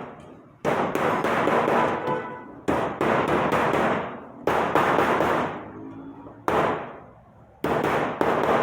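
Small hammer striking the folded tabs of a sheet-metal chimney-pipe collar, about five separate blows a second or two apart, each ringing on afterwards. The tapping sets the bent-over tabs so the collar grips the pipe without rivets.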